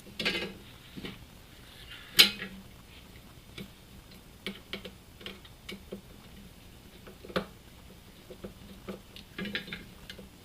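Self-tapping screws being driven into a Lee Loadmaster reloading press to hold its explosion shield: irregular small metallic clicks and ticks as the screw and tool turn. There is a sharp click about two seconds in and another a little past seven seconds.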